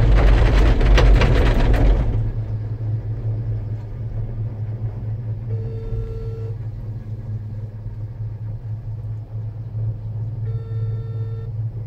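Cable car gondola running along its cable, heard from inside the cabin: a steady low hum, with a loud rumble and rattle for the first two seconds as the car rolls through the sheaves of a support tower, then quieter steady running. Two short beeps, each about a second long, sound around the middle and near the end.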